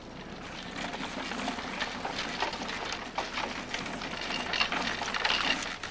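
Child's plastic big-wheel tricycle rolling on a concrete sidewalk, its hard plastic wheels rattling and clattering. The rattle builds about half a second in and stops abruptly near the end.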